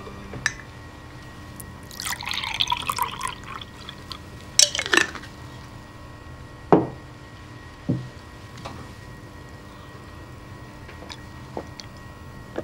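Milk poured from a glass bottle into a drinking glass, followed by a few glassy clinks. Then two short knocks as the bottle and glass are set down on the table.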